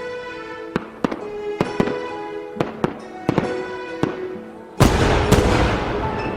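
Fireworks going off: a run of sharp bangs, then a much louder dense crackling burst almost five seconds in. Music plays throughout.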